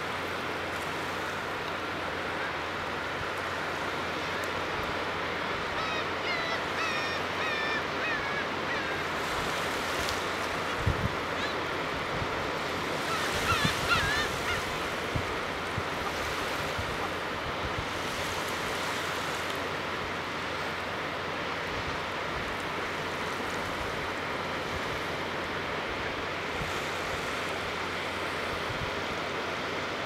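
Small waves washing steadily onto a sandy beach, with brant geese calling: a run of short calls about six seconds in and a brief burst of calls around fourteen seconds. A low bump about eleven seconds in.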